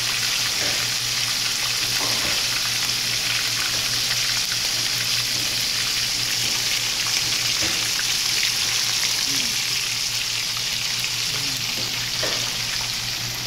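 Floured whole fish frying in a skillet of hot oil: a steady sizzle with fine crackling and occasional small pops, over a steady low hum.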